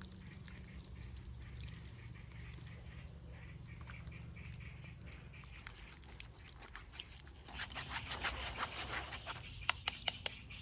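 Lemongrass frying in oil: a faint low hum at first, then about two-thirds of the way in a crackling sizzle with stirring starts, and a few sharp clicks of a utensil against the pan come near the end.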